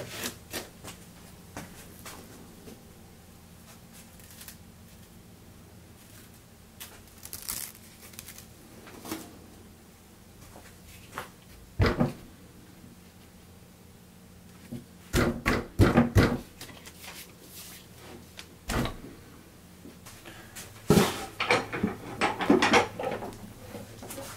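Handling knocks and clacks as a hook-and-loop interface pad is fitted to the backing pad of a Bosch GET 75-150 random-orbit sander and the tool is moved on the workbench. The loudest clusters come about 15 and 22 seconds in, over a faint steady low hum.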